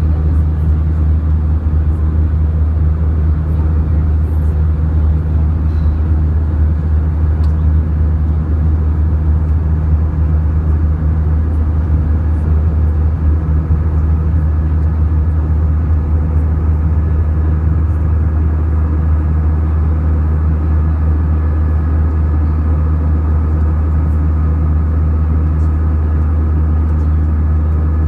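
Steady jet airliner cabin noise: the Airbus A319's engines and airflow as a constant low drone with a few faint steady whining tones above it, unchanging throughout.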